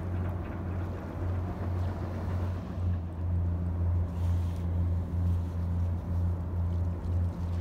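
A steady low rumble with a fainter hum just above it, swelling and dipping every second or so.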